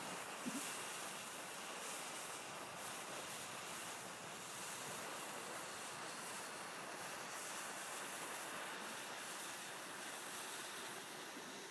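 Burning fuse on a pound of black powder, hissing steadily and spitting sparks as it burns down, with small crackles.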